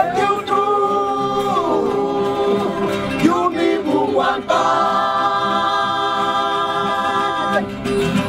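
Music: a group of voices singing long held notes over a steady low sustained tone, with a short passage of gliding pitches in the middle.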